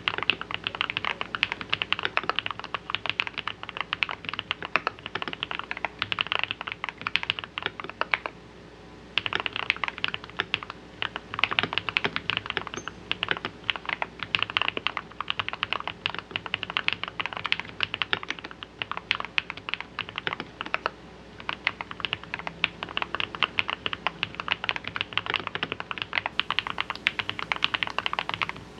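Typing on an RK Royal RG-987 mechanical keyboard modded for a deep, thocky sound: lubed Holy Panda–style tactile switches in a steel plate, with Poron plate foam and a silicone-filled case. Fast, steady keystrokes, with a pause of about a second some eight seconds in.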